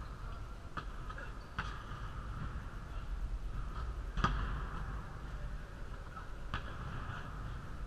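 Basketball impacts during shooting practice: a few sharp knocks and one louder thump about four seconds in, over a steady background hum.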